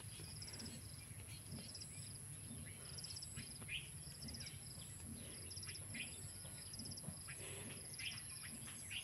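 Faint crickets chirping in short, evenly repeated pulsed trills about once or twice a second, with a few brief high bird calls between them.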